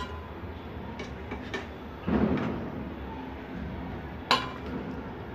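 A metal spoon working in a metal pot as masala is spooned onto rice: a few light ticks, a soft plop of the masala landing about two seconds in, and a sharp ringing clink of the spoon against the pot near the end, over a steady low hum.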